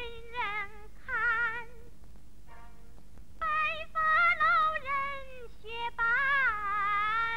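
A woman singing in Chinese opera style: high, drawn-out notes with a wide vibrato, in several phrases broken by short pauses.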